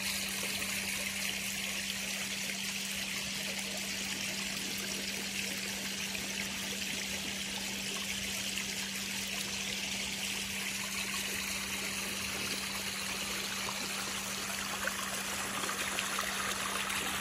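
Water splashing and trickling steadily over a stacked-stone pond waterfall, an even hiss with no breaks, over a steady low hum.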